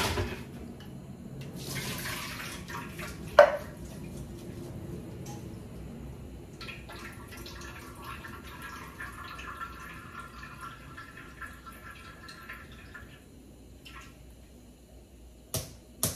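Water running and splashing into a kitchen sink, with a sharp click a few seconds in and several quick knocks near the end.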